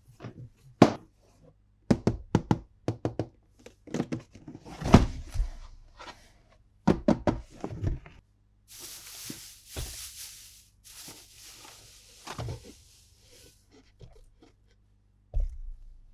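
Hard plastic toy and track pieces being handled, clicking and knocking together in quick clusters, with a few seconds of rustling about nine seconds in.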